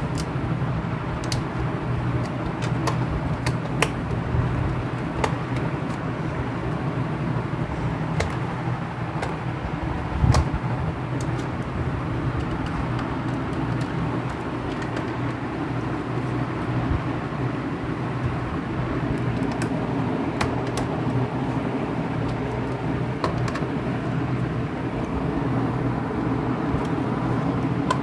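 A steady rumbling background noise, with scattered light clicks and knocks from a screwdriver working the screws of a plastic laptop base panel; one louder knock about ten seconds in.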